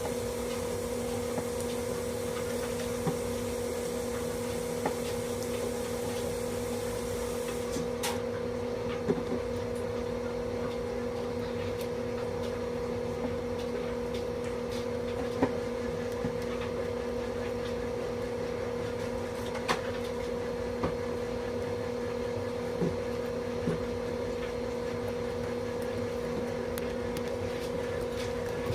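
A steady electrical hum with scattered small clicks and taps.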